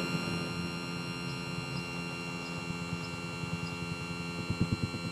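Electric power sander running steadily on the metal of a boat outdrive, a constant hum with a high ringing whine.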